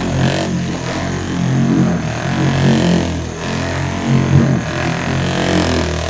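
Electric orbital polisher running steadily with its foam pad pressed on a car's painted hood, spreading wax; a continuous motor hum whose pitch wavers a little as the pad is moved and pressed.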